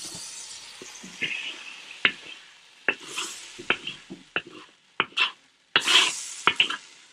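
Wooden spatula knocking and scraping against a wok as braised pork belly pieces and their sauce are scraped out onto a plate, with hot oil sizzling in the pan. The sizzle fades after the first few seconds, and a louder sizzle flares up about six seconds in.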